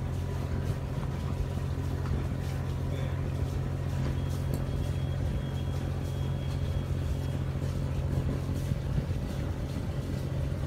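Steady low engine drone, running evenly without change.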